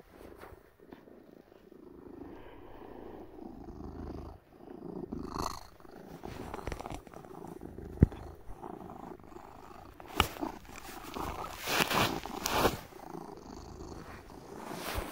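Domestic cat purring steadily, with a sharp click about eight seconds in and a few brief, louder rustling sounds near the end.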